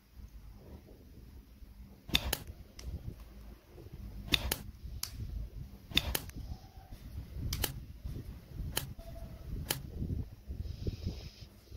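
Plastic parts of an SD Gundam model kit snapped and pressed together by hand: about ten sharp plastic clicks, some in quick pairs, over low rubbing and handling noise, with a brief rustle near the end.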